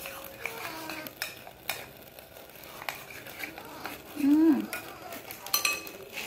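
Metal spoon stirring cake batter in a ceramic bowl, with irregular clinks and scrapes against the bowl. A short vocal sound that rises then falls in pitch comes about four seconds in and is the loudest moment.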